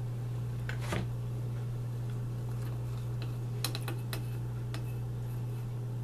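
Wooden sticks tapping and scraping against a small metal saucepan of melted pine pitch: a couple of light clicks about a second in and a quick cluster near the middle, over a steady low hum.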